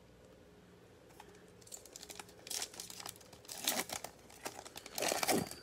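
Foil trading-card pack wrapper being torn open by hand, crinkling and tearing in irregular crackles that start about two seconds in and are loudest near the end.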